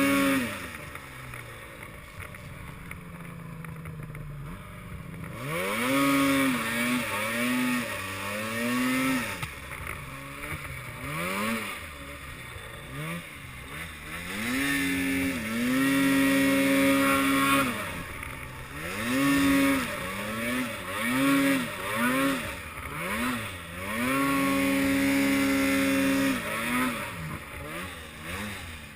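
Arctic Cat M8 snowmobile's two-stroke engine revving up and down over and over. It runs low for the first few seconds, then comes a string of short throttle bursts and two longer runs held at high revs.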